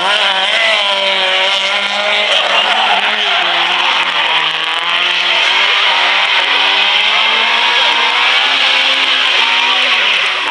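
Rally car engine revving hard, its pitch rising and falling with the throttle, while the tyres squeal and skid through spins on tarmac.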